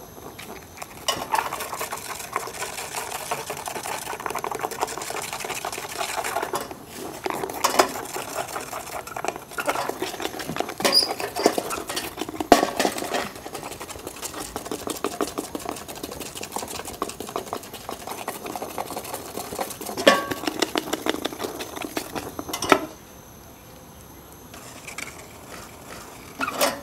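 A stick stirring rapidly in a small metal ladle of dalgona sugar, a fast steady clatter-and-scrape that stops suddenly about 23 seconds in. A few separate knocks follow near the end.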